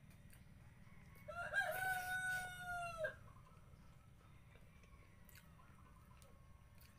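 A rooster crowing once, a single drawn-out call of about two seconds starting a little over a second in.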